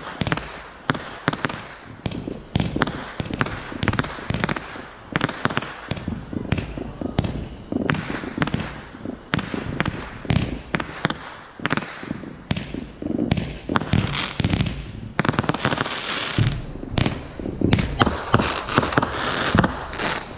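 Fireworks going off: a rapid, irregular series of sharp bangs and pops, with stretches of dense crackling in the second half.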